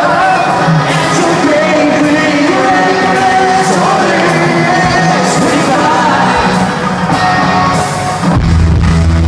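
Pop-punk band playing live in an arena, with voices singing over guitars and drums, the sound poor. Heavy bass and drums come in hard about eight seconds in.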